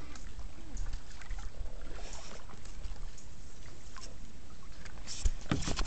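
Kayak paddling in still water: the paddle blades dip in with soft drips and splashes, and a few sharper knocks come near the end.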